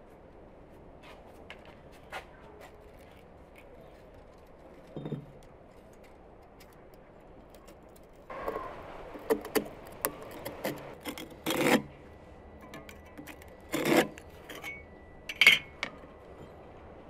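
A firebrick and a steel tape measure being handled on a dusty worktable: scraping and clicking that start about halfway through, with three louder rasping strokes near the end.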